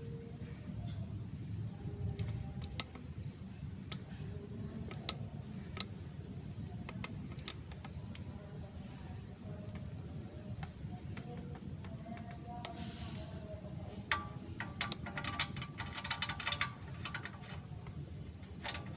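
Scattered metallic clicks and clinks of hand tools being handled, with a quicker run of clatter about three-quarters of the way through.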